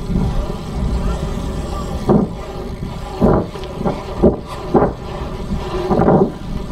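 Wind buffeting the microphone as a steady low rumble, with several short louder swells about a second apart.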